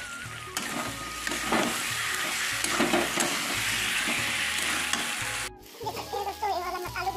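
Egg and potato curry frying in a metal kadhai, sizzling while a metal spatula stirs and scrapes through it, with a few sharper scrapes along the way. About five and a half seconds in, the sizzle cuts off suddenly and background music carries on.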